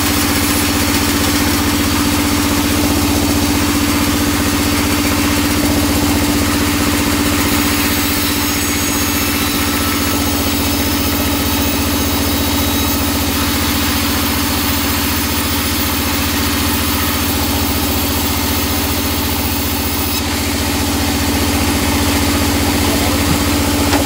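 Band sawmill running steadily, giving a constant, unchanging drone.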